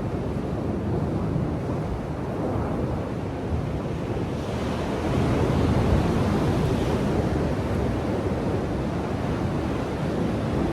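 Ocean surf on a beach, with a wave breaking and washing in about halfway through, louder and hissier for a couple of seconds. Wind buffets the microphone with a low rumble.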